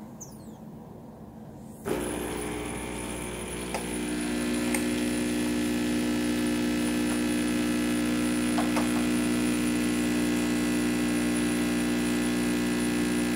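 An Oster Prima Latte II espresso machine's pump starts about two seconds in and runs with a steady hum while it brews espresso into the cup.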